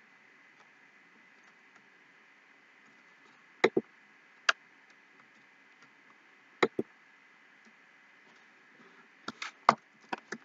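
Computer mouse clicking: a pair of clicks, a single click, another pair, then a quicker run of several clicks near the end, over a faint steady hiss.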